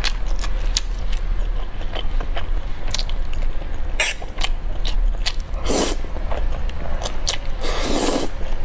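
Close-miked eating: scattered wet mouth clicks and chewing, then two loud slurps of thick noodles, a short one past the middle and a longer one near the end. A steady low hum underneath.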